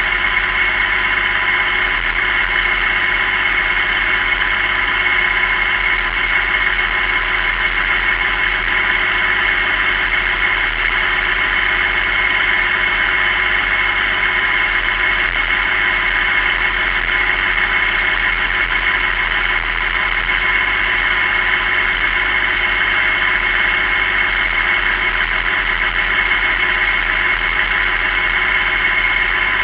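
Massey Ferguson 6290 tractor's six-cylinder diesel engine running steadily under way on the road, a constant drone with a steady high whine over it.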